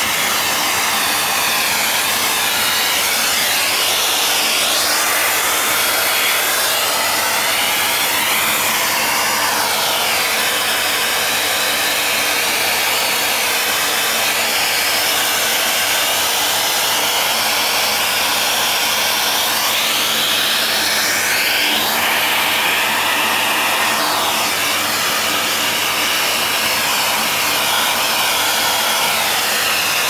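Miele canister vacuum cleaner running steadily, its rushing suction noise sweeping up and down in pitch now and then as the nozzle is moved about.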